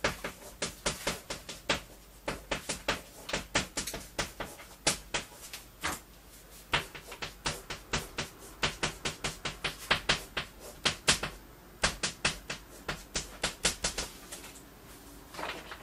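Chalk writing on a blackboard: a quick, irregular run of sharp taps and short scratches, several a second, as each stroke of the characters is drawn.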